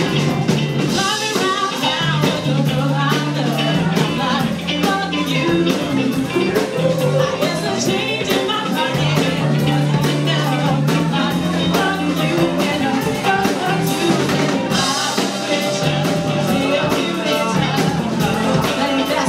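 Live band playing a song: a singer's voice over a drum kit, guitars and keyboard, with a steady beat and held bass notes.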